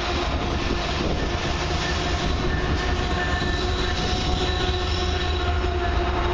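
A CN freight train led by two diesel locomotives approaching and passing at close range: the locomotive engines run and the steel wheels rumble on the rails. Steady ringing tones sit over the noise.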